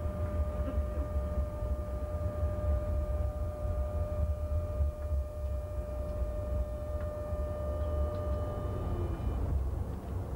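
Low rumble of a Paris TFS tram running along its track, heard from the driver's cab. A steady high whine sits over it and stops near the end.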